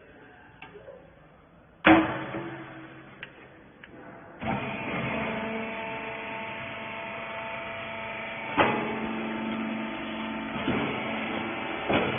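A loud clunk, then the baler's hydraulic motor and pump start up about four seconds in and run steadily, with a few metallic knocks over the running.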